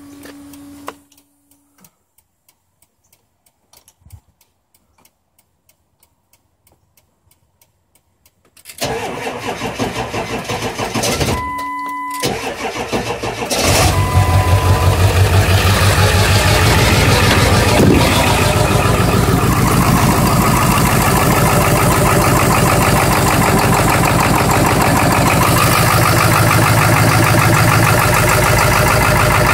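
7.3-litre diesel V8 cranking for about five seconds before it catches: a hard start. It then runs at a loud, steady idle. Earlier there are a short steady tone and faint regular ticking, with another brief tone during the cranking.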